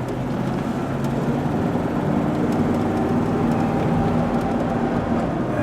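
A car being driven along a road at steady speed: a steady engine hum with tyre and road noise.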